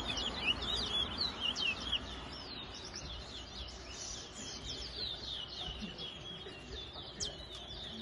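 Caged twa-twa (large-billed seed finch) singing: quick runs of high, clear whistled notes sliding up and down, one after another without a break.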